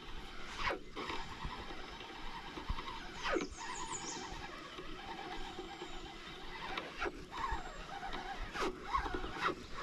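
Spinning rod and reel being handled and cast: a few short, falling swishes and some high squeaks over a steady background hiss.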